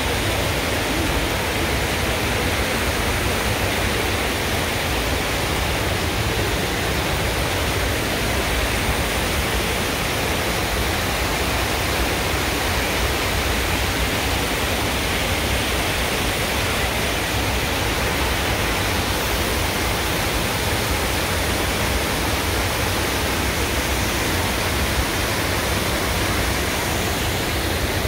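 Steady rush of whitewater from a river's rapids and waterfall, an even, unbroken roar of water.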